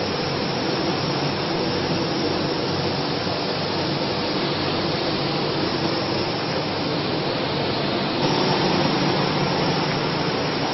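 Steady noise of factory machinery running on a popcorn production line: a dense hiss over a low hum, getting slightly louder about eight seconds in.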